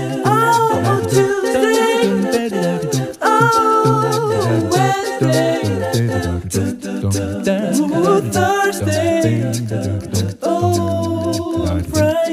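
Background music: a sung vocal line with wavering, drawn-out notes over a low bass.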